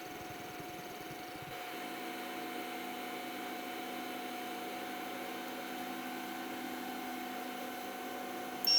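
3D printer running a print: a steady whine from its stepper motors and fan, with a lower set of motor tones joining about a second and a half in. A loud high beep starts right at the end.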